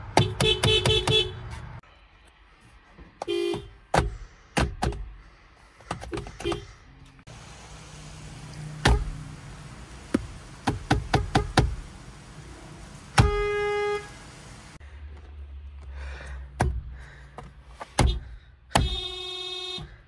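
Car horns of a Honda Civic and Nissans sounded in turn from the steering-wheel pad: a rapid string of short beeps at the start, brief blips, a held honk of about a second past the middle, and another honk near the end. Sharp knocks from the pad being pressed fall between the honks.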